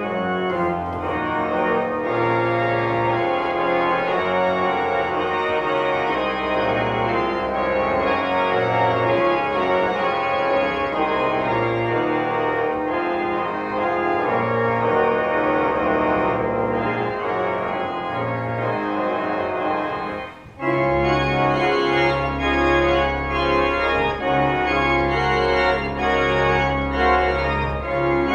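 Organ playing sustained chords. About twenty seconds in the sound drops away for a moment, then returns fuller, with deeper bass notes added.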